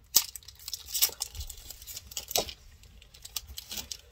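Foil booster-pack wrapper crackling and tearing as it is ripped open by hand and teeth, in a string of sharp crinkles.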